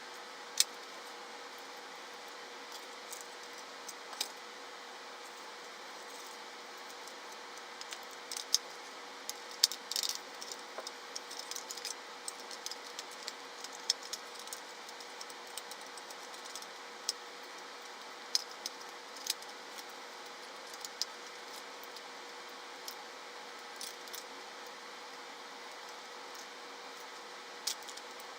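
Scattered light clicks, taps and small metallic rattles of a toy train locomotive being handled and put back together, over a faint steady hiss and hum. The clicks come irregularly, bunched most thickly in the middle.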